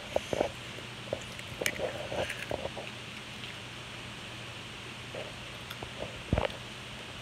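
Small clicks and crunches of someone eating and picking candy off a plate, with one heavier thump about six seconds in, over a faint steady low hum.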